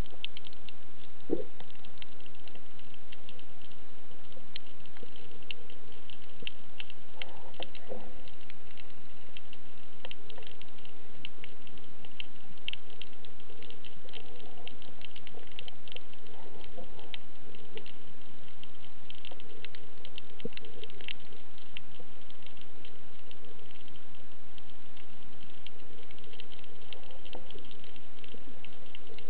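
Underwater ambience over a rocky reef: a steady, dense crackle of countless fine clicks, with a few faint low scrapes and hums mixed in.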